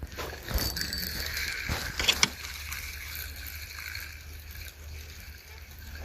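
Fishing reel being cranked to bring in a hooked fish: a steady mechanical whir with a few sharp clicks about two seconds in.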